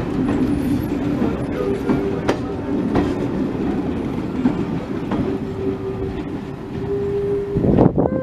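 Railway coaches rolling slowly past, their wheels clicking over rail joints about once a second over a steady rumble, with a steady whine in the second half. A brief louder rumble comes near the end.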